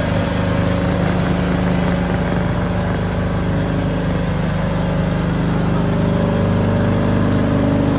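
A motor vehicle's engine running steadily, with road and wind noise.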